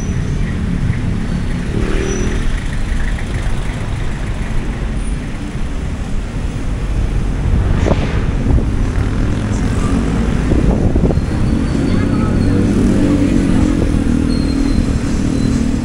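Street traffic: motorcycle and car engines running past, with a steady engine hum that grows louder in the second half.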